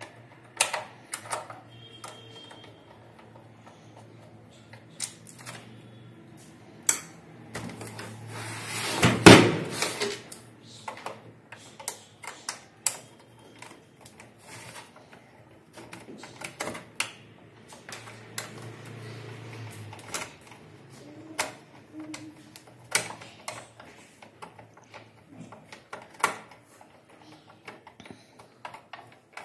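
Small screwdriver working the screws of an APC Back-UPS's plastic case, with scattered light clicks and taps of metal on plastic. A louder, longer knock and rustle of the case being handled about nine seconds in.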